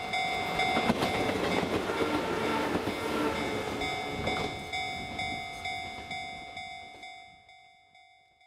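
Nishitetsu 313 series electric train passing close by, its wheels clattering over the rail joints and loudest in the first four seconds, then fading as it runs away. Under it a steady ringing tone pulses about three times a second, and everything fades out near the end.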